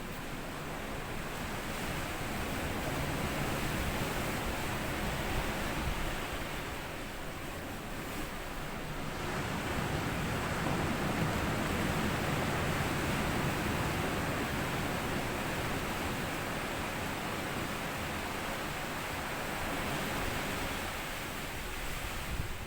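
Sea waves breaking and washing up and back over a sandy beach: a steady hiss of surf that swells twice as waves come in and then ebbs.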